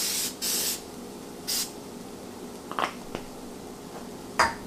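Aerosol canola oil cooking spray hissing in three short bursts onto burger patties in a skillet, two back to back at the start and one about a second and a half in. A few light clicks follow later.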